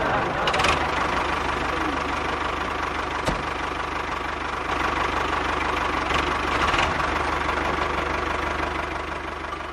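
A motor or engine running steadily, with a few faint clicks over it.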